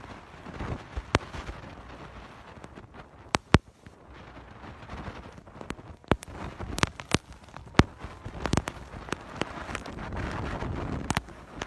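Storm wind and rain with scattered sharp cracks and knocks, coming more often in the second half.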